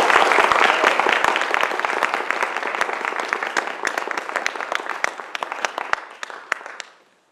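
Audience applauding. The clapping fades, thins to a few scattered claps and stops shortly before the end.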